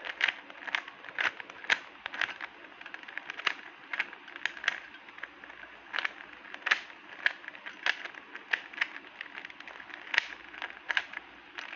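Irregular crackling: sharp clicks and pops at uneven intervals, several a second, some louder than others, over a steady hiss.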